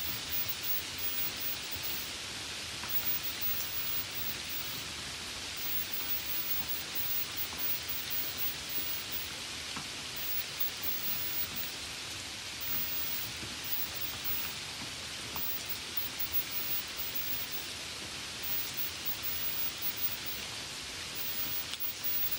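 Light rain falling steadily: an even hiss, with an occasional faint tick of a single drop.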